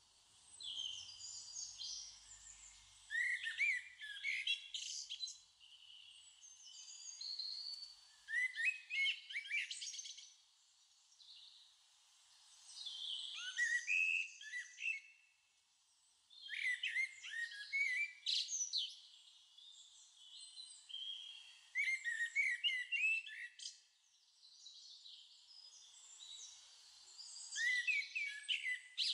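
Birdsong: about six phrases of quick, high chirps and downward-sliding whistles, each lasting a couple of seconds, with short pauses between them.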